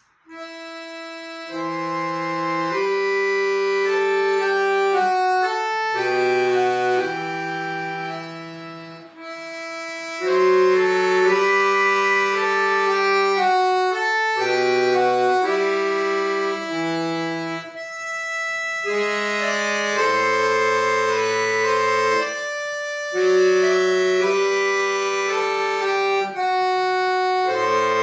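Accordion playing a Russian folk song arrangement: a slow melody in long held notes over left-hand bass notes and chords, starting from silence at the very beginning.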